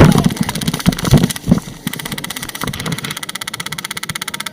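Airsoft electric rifle firing on full auto: a fast, even rattle of shots that runs steadily from about two seconds in. Before it come a few irregular low knocks and thumps.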